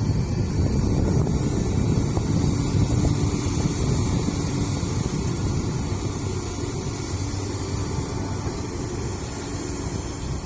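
Diesel engines of heavy earthmoving machinery, an excavator loading a dump truck, running steadily with a low rumble that eases slightly toward the end.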